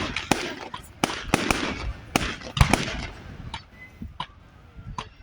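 Fireworks going off: a quick string of sharp bangs with crackling over the first three seconds, thinning to a few scattered pops near the end.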